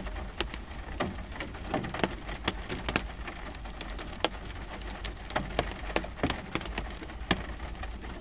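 Light rain falling on a car windshield, heard from inside the car: single drops tap on the glass at irregular moments, several a second, over a steady low rumble.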